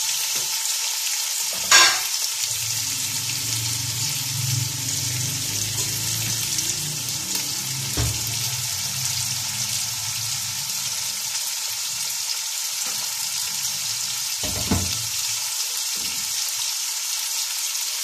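Sliced onions sizzling steadily in hot oil in a large aluminium pot as they are browned, with a few knocks of a slotted metal spatula against the pot, the loudest about two seconds in.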